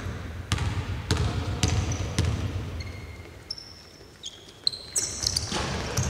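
A basketball bounced on the court floor four times, about two bounces a second, as a player dribbles at the free-throw line. In the second half come several short, high-pitched sneaker squeaks on the floor.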